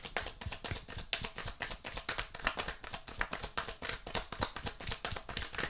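A tarot deck being shuffled in the hands: a fast, continuous run of soft papery card slaps and flicks.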